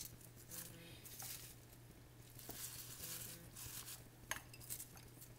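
Faint rustling of fresh basil leaves being pushed by hand into a plastic food processor bowl, with a few light clicks, over a low steady hum. The processor motor is not running.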